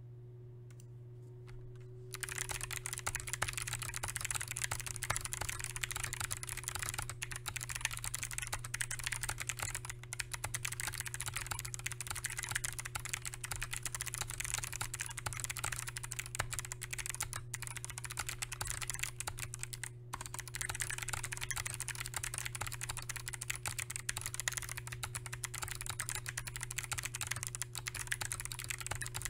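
Continuous fast typing on a stock GMMK White Ice Compact mechanical keyboard with Kailh Box Jade clicky switches, a dense run of sharp key clicks that starts about two seconds in. A steady low hum sits underneath.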